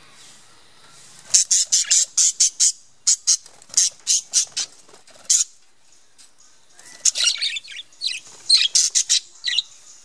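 Budgerigars giving rapid, shrill chirps and squawks in two busy bouts, with a pause of about a second and a half between them.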